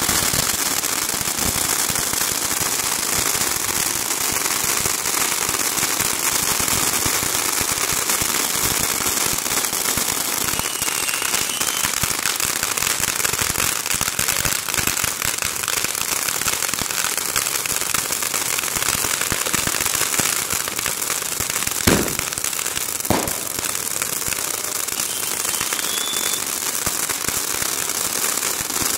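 Fireworks finale: many fountains and crackling effects going off at once in a dense, unbroken crackle. About three-quarters of the way through, two louder bangs stand out, a little over a second apart.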